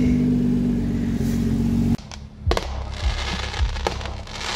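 A BMW's engine running steadily at idle for about two seconds. The engine sound then stops abruptly and aerial fireworks take over: two sharp bangs about a second and a half apart, with crackling between them.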